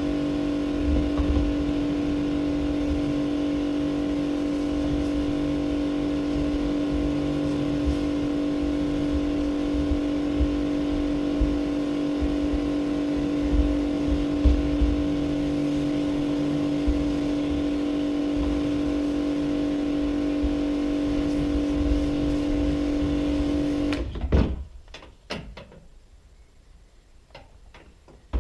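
Electric pressure washer's motor and pump running with a steady hum while the lance sprays inside a plastic IBC tank. About 24 seconds in it cuts off suddenly, leaving a few faint knocks, and starts up again at the very end.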